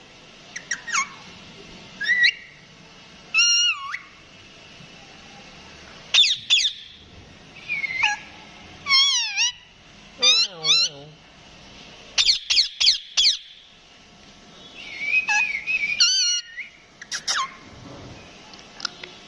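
Indian ringneck parakeet giving a string of short, high whistles and squawks, each note sweeping up or down in pitch, some in quick runs of three or four.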